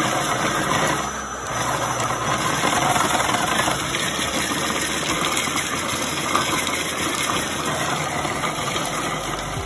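Small electric food processor running steadily, its motor whirring as the blade chops the contents of the bowl.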